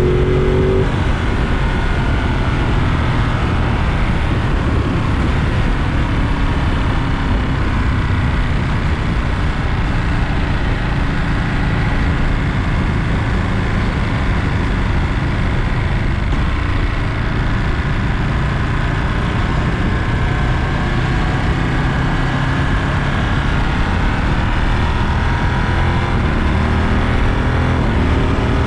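Ducati Monster 937's Testastretta V-twin engine running on the move: a rising rev ends in the first second, then it holds a fairly steady cruise with only slight rises and falls in pitch.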